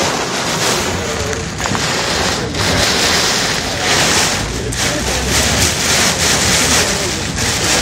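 Heavy, wind-driven thunderstorm rain pelting a car's windshield and body while driving, heard from inside the car: a loud, steady rush that swells and eases every second or two.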